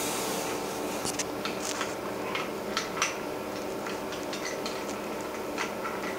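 Scattered light metallic clicks and taps as a port fitting on top of a liquid-nitrogen dewar is worked open by hand, so that the dewar is vented for filling. Under them runs a steady mechanical hum from lab equipment.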